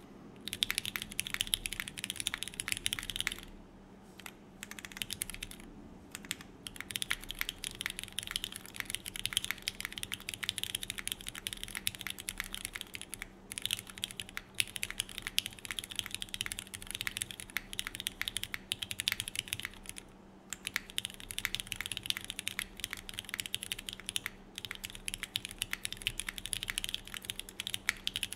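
Fast, continuous typing on a TGR x Singakbd Unikorn mechanical keyboard: lubed Cherry MX Black linear switches with films, an aluminium plate in a drop-in o-ring mount, and GMK keycaps. The keystrokes come in runs of several seconds, broken by a few short pauses.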